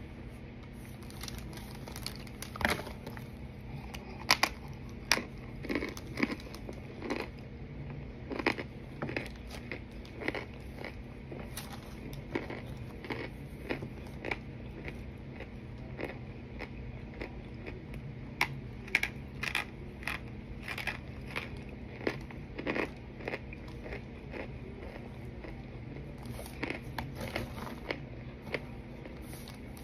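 A person biting and chewing hard, brittle, crunchy pieces close to the microphone: irregular sharp crunches and cracks, some much louder than others, over a low steady hum.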